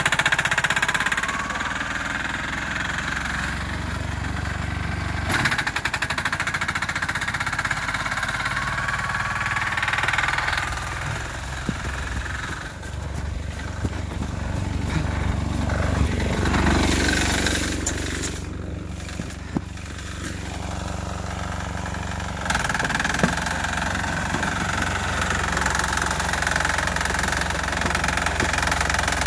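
Sears garden tractor's 6 hp single-cylinder air-cooled diesel running under load while plowing snow, a fast knocking beat. Its level dips for a while midway and jumps back up about 22 seconds in.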